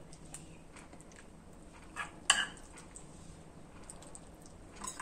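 A metal spoon clinking a few times against a ceramic plate and a metal pot as stewed meat is served, with the sharpest clink just over two seconds in.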